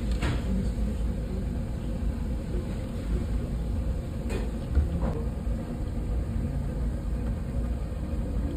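Medu vadas deep-frying in a wide pan of hot oil, the oil bubbling over a steady low rumble. A perforated steel ladle clicks against the pan a few times.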